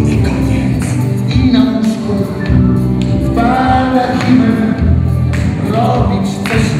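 Loud dance music with a sung vocal and a steady beat, played over a party sound system.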